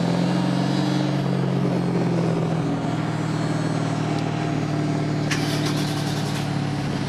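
Car engine droning steadily at an even pace, heard from inside the cabin over road noise; the engine note eases slightly about a third of the way through.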